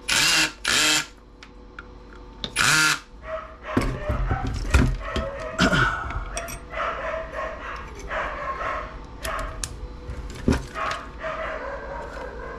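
A dog barking three times in the first three seconds. After that come scattered clicks, knocks and rattling of small objects being handled.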